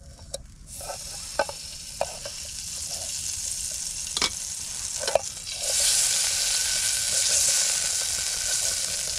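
Butter sizzling as it melts in a small camping pot over a gas stove, with a few light clicks of a utensil against the pot. The sizzle starts within the first second and grows louder about six seconds in.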